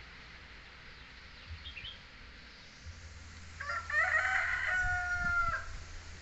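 A rooster crowing once: a few short broken notes, then a held cock-a-doodle-doo call lasting about two seconds.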